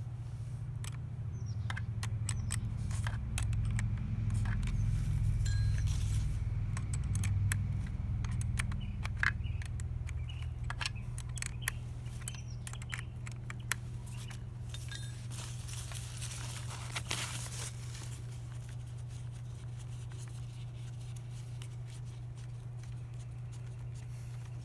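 Wrench and small metal parts clicking and clinking while tight bolts are worked off a motorcycle tail-light bracket, with a brief scrape near the end of the busy part. A steady low hum runs underneath.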